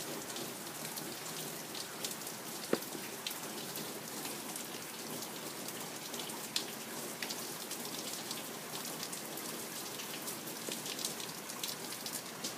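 Steady rain falling during a thunderstorm, with a few sharp taps of single drops hitting something close by, the loudest about two and a half seconds in.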